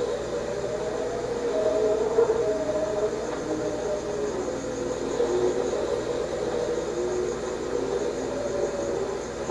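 Eerie droning soundscape: a low hum with several slowly wavering, moaning tones over a steady hiss, like the soundtrack of a spooky ghost effect.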